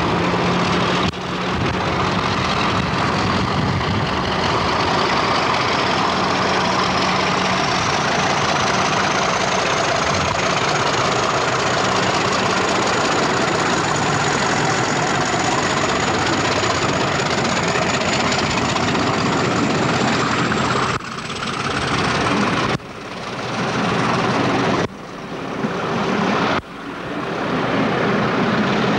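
Class 50 diesel-electric locomotive (English Electric 16-cylinder engine) pulling away under power and passing close by, with a high whine climbing steadily in pitch for about twenty seconds. After that the coaches run past, the noise dipping and building again about every two seconds.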